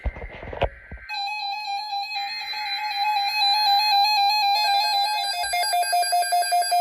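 A click, then a steady buzzy electronic tone that wavers slightly. About four and a half seconds in it drops a little in pitch and turns into a fast pulsing beep, like an alarm.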